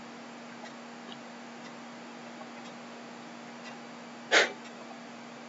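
An online chess board's move sound: one short click about four seconds in as a piece is played. Faint light ticks and a low steady hum sit underneath.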